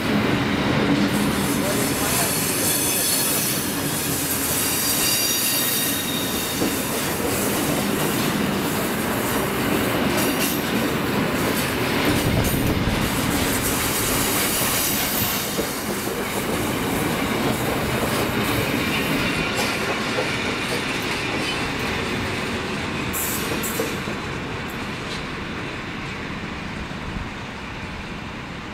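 Fully loaded timber train's log wagons rolling past, a steady din of steel wheels running on the rails. It fades over the last few seconds as the train draws away.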